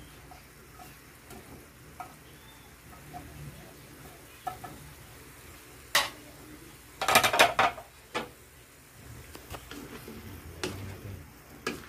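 Faint sizzling in a wok, with small knocks as broccoli florets are slid in off a chopping board. About seven seconds in comes a loud burst of metal clattering against the wok, followed by a few more knocks as the vegetables are stirred.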